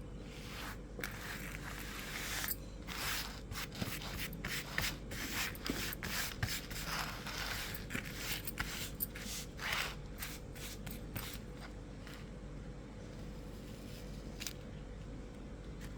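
Kinetic sand being scraped and rubbed: a run of short scraping strokes for the first eleven seconds or so, then mostly still apart from one more stroke near the end, over a faint steady hum.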